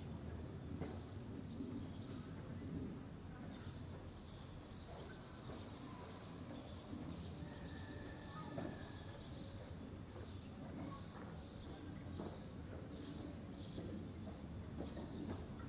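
Quiet outdoor village ambience: a steady run of short high chirps, about two a second, from a bird or insect, over a low background rumble.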